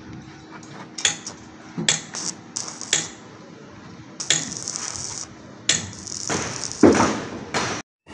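Sharp metal clinks and knocks, about half a dozen in the first three seconds, then two stretches of hissing noise with more knocks between them; the sound cuts off abruptly just before the end.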